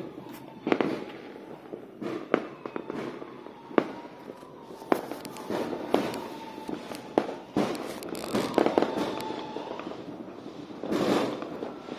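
Fireworks and firecrackers (cuetes) going off all around, with sharp irregular bangs often less than a second apart and a denser crackling barrage about eleven seconds in.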